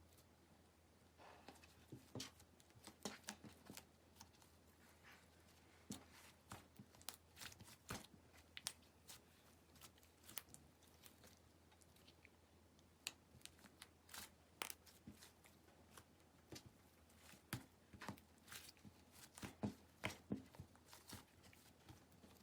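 Clear slime being squeezed and pressed by hand, making quiet, irregular sticky clicks and pops.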